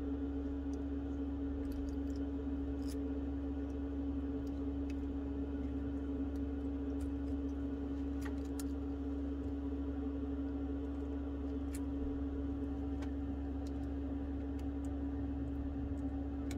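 A steady low hum runs throughout. Faint small clicks and taps come here and there as fingers press display flex-cable connectors onto an iPhone 11 logic board.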